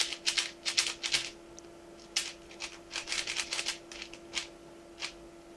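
Plastic 4x4 speedcube being turned fast by hand: rapid runs of clicking layer turns in quick bursts, with a few single turns and a short pause near the end. This is the OLL parity algorithm being executed during the 3x3 stage of a Yau-method solve.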